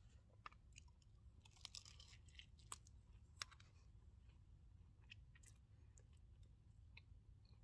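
Quiet eating sounds: scattered soft clicks and crunches from a breakfast burrito of egg and bacon being chewed and its tortilla handled over a metal plate, most of them in the first half, over a low steady rumble.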